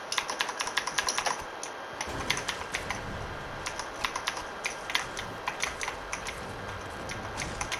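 Computer keyboard keys and mouse buttons clicking quickly and irregularly during fast gaming, with a low rumble underneath from about two seconds in.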